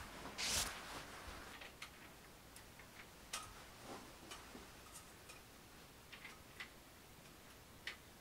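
Soft, irregular footsteps and small clicks and taps of someone moving about a quiet room, with a brief rustle about half a second in.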